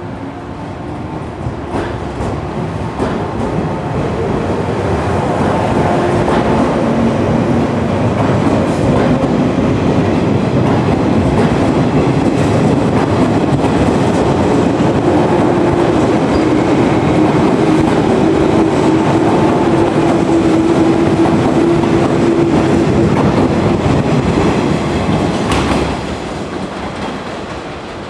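JR East 113 series electric train departing and passing close by: the resistor-controlled traction motors hum, slowly rising in pitch as the train picks up speed, with wheels clacking over rail joints. The sound falls away near the end as the last car passes.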